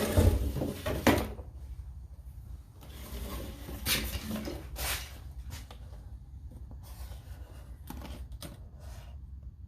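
Hands handling the impact wrench's packaging and accessories: a cluster of knocks and rattling in the first second, then scattered clicks, taps and rubbing.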